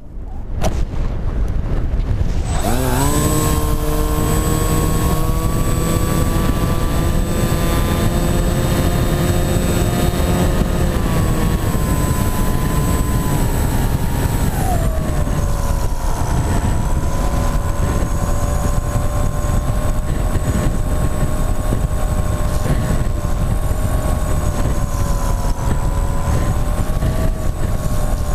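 Motor and propeller of a Wing-X EPP foam flying-wing model winding up about two and a half seconds in, then running at a steady pitch. About halfway through, the throttle is eased and the pitch drops to a lower steady level. Heavy wind rush sits over it on the onboard camera's microphone.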